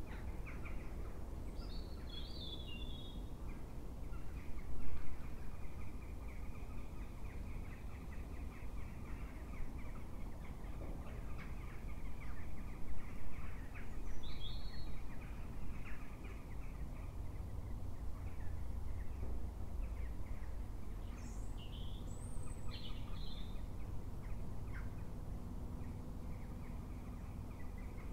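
Outdoor ambience of steady wind rumble with a few short, high bird calls that drop in pitch: one about two seconds in, one near the middle, and two or three more close together near the end.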